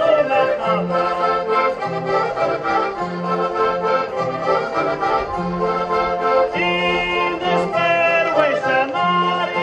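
Portuguese folk dance music led by an accordion, over a steady bass line that alternates between two low notes.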